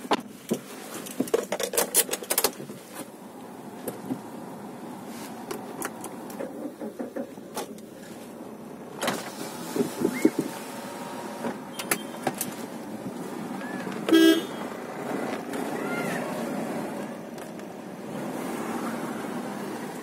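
Street traffic heard from inside a car, with scattered clicks and knocks and one short car horn toot about fourteen seconds in.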